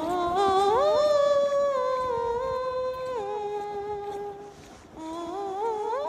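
Several voices humming a wordless chord, sliding up together, holding, then stepping down and fading; a second upward slide starts near the end.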